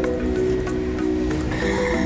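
Background music: a melody of held notes over a soft, steady backing.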